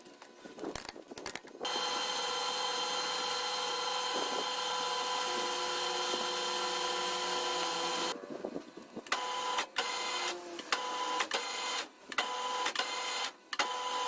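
A small machine's motor whining steadily for about six seconds, then running in short stop-start bursts.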